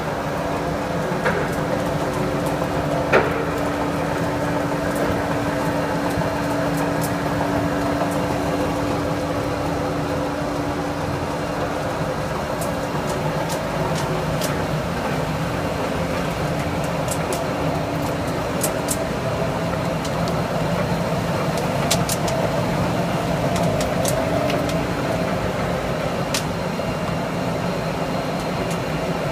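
Simec belt polishing machine for marble and granite slabs running with a steady mechanical drone. A steady hum in it fades out about twelve seconds in, and light ticks come now and then in the second half.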